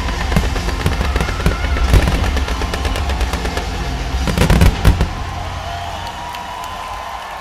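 Rapid barrage of aerial firework launches and shell bursts, a dense run of cracks and booms that peaks in a cluster of the loudest bangs just before five seconds in, then dies away. Music plays underneath.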